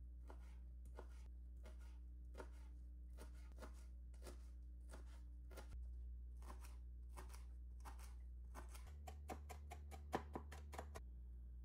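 Kitchen knife chopping fresh dill on a cutting board: light knife strikes about one or two a second, quickening into a faster run of louder chops about nine seconds in, then stopping shortly before the end.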